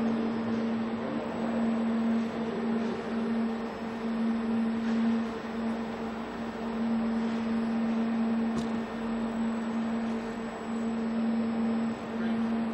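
OTC Daihen Almega EX-V6 welding robot system running: a steady electrical hum over a hiss, with a few brief dips in the hum.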